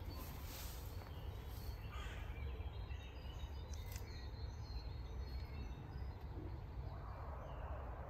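Outdoor park ambience: a steady low rumble with scattered bird calls, a louder call about two seconds in. A soft hiss comes in near the end.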